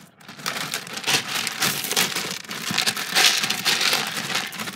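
A cat scratching and digging in pellet cat litter: a dense, crackly rustle and rattle of pellets being shifted, busiest in the middle of the stretch.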